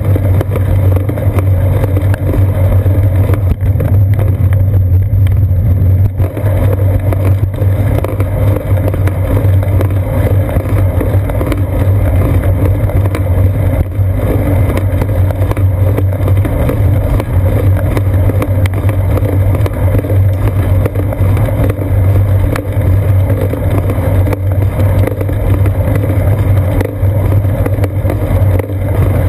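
Steady low rumble of road vibration and wind on a seat-post-mounted GoPro Hero 2 while a bicycle rides along asphalt.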